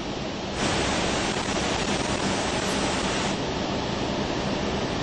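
Steady rushing cockpit noise of an Airbus A380 taxiing: air-conditioning and engine hiss with a faint low hum underneath. The hiss grows brighter and louder just over half a second in and eases back about three seconds in.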